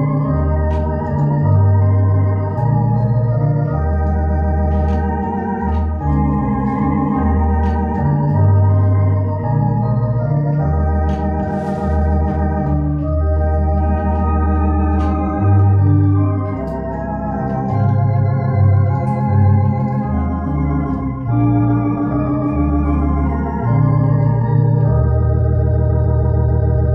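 Electronic organ playing sustained chords on the manuals, with a slight vibrato, over a bass line of pedal notes that changes every second or so.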